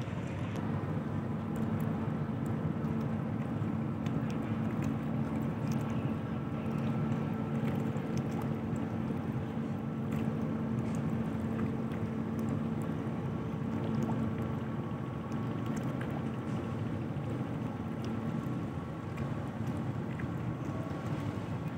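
Steady low drone of a large ship's engines carried across the water as the passenger ship gets under way, with a light rush of wind on the microphone.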